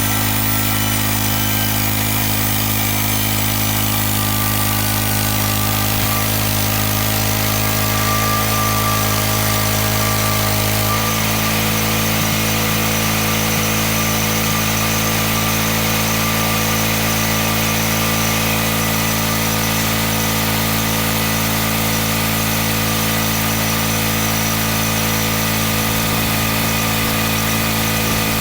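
Gas engine of a homemade band sawmill running steadily. Its tone shifts slightly about eleven seconds in.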